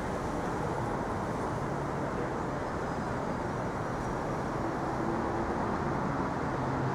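City street traffic noise: a steady low rumble of vehicle engines and tyres, with a faint engine hum coming up in the second half.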